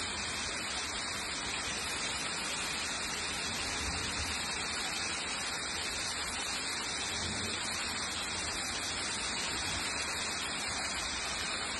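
Steady, even hiss of a heavy downpour in a hailstorm, with no separate hailstone impacts standing out.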